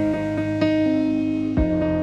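Background music: plucked guitar chords over a bass line with a soft beat.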